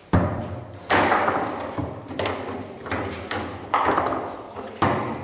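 Foosball table in play: about half a dozen sharp knocks at irregular intervals as the ball is struck by the men and cracks off the table walls and the rods jar in their bearings. The first knock, near the start, is the loudest.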